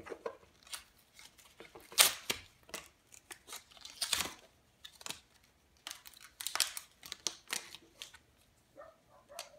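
SanDisk SD memory card packaging being torn open by hand: a run of short crackling, tearing and crinkling noises, loudest about two seconds in and again around four seconds and near seven seconds.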